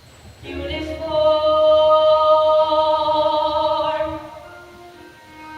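Several voices sing one long held note in a musical-theatre number. The note ends about four seconds in, and softer instrumental accompaniment carries on.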